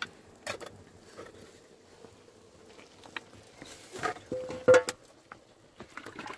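Irregular snaps, clicks and knocks from twigs handled and burning on an open wood fire, with the loudest cluster about four to five seconds in.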